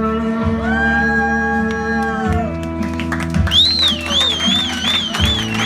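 Instrumental music with guitar, held notes over a steady low beat. A high, wavering note comes in over the top after about three and a half seconds.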